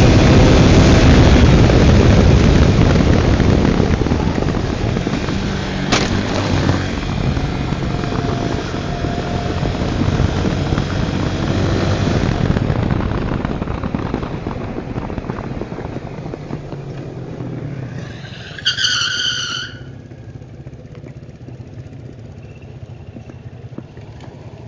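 Tornado 250 motorcycle underway, its engine running under wind noise that is loud at first, then gradually quieter as the bike slows. A horn sounds once for about a second near the end, followed by a low steady engine hum.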